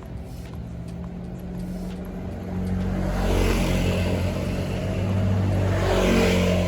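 A motor engine running steadily, growing louder about two and a half seconds in.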